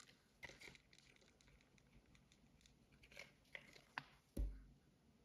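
Faint handling noises, a few light clicks and rustles of a plastic part being moved in the hands, then one dull, deep thump a little after four seconds in, the loudest sound.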